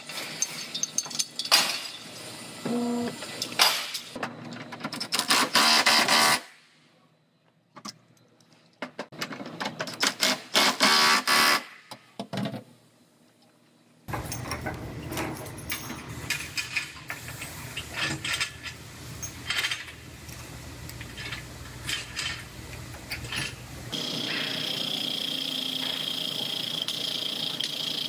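Collision-repair work at a Car-O-Liner frame-straightening tower, with metal clanks and rattles from chains and clamps being rigged to pull out a pushed-in rear body panel. This comes in short cuts, then a steady hum, and in the last few seconds a steady high whine.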